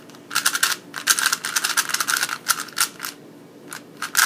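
Rubik's Cube layers being turned fast during a speed solve: rapid plastic clicking and clacking that stops about three seconds in, followed by a few scattered clicks near the end.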